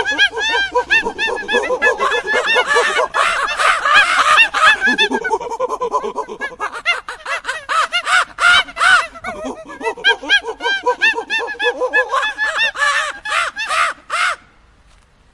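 Monkeys chattering and screeching: many quick, overlapping high calls, each rising and falling in pitch, breaking off about fourteen seconds in.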